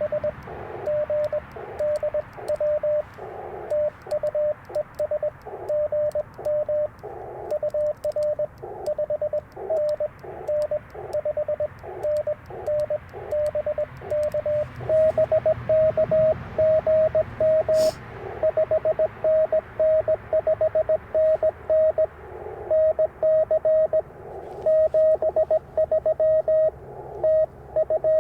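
Morse code (CW) on an Icom IC-705 transceiver: a single mid-pitched tone keyed on and off in rapid dots and dashes. Some stretches are a clean tone and others come through a wash of receiver hiss.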